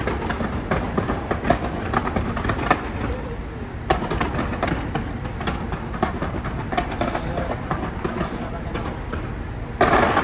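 Fireworks crackling and popping in a rapid, irregular stream of sharp reports, with a louder burst near the end.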